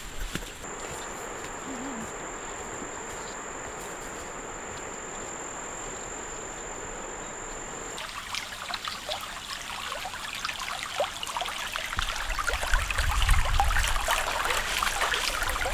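A steady, high, thin insect trill over an even hiss. About eight seconds in this gives way to a shallow stream trickling and splashing over pig intestines lying in the water. The water grows louder near the end, with some low rumbling.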